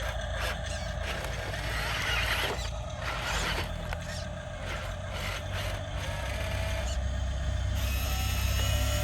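Radio-controlled construction model running: a steady low engine-like rumble with the whirring and rattling of its small electric motors and gears, and a thin whine joining in from about six seconds in.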